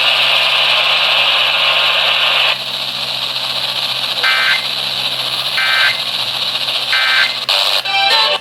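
Three short Emergency Alert System end-of-message data bursts (the digital SAME code that closes a Required Monthly Test) go out over the radio, evenly spaced a little over a second apart. Steady radio hiss runs underneath, and a loud hiss of static comes first for about two and a half seconds.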